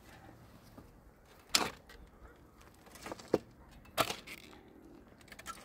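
A few sharp knocks and clicks, the loudest about one and a half and four seconds in, with two quicker ones around three seconds and small clicks near the end.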